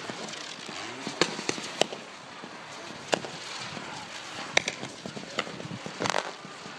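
Fireworks going off: about seven sharp bangs at irregular intervals over a continuous crackling hiss, with a longer burst near the end.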